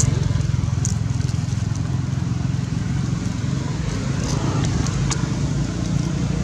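A steady low engine rumble, with a few brief crackles as the plastic bag is handled about a second in and again around four to five seconds.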